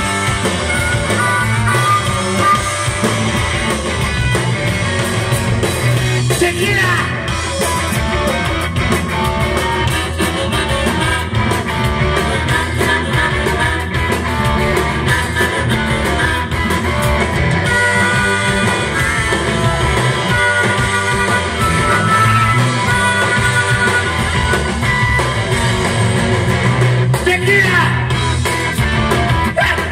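Live rock band playing loud: a lead singer over electric guitars and a drum kit.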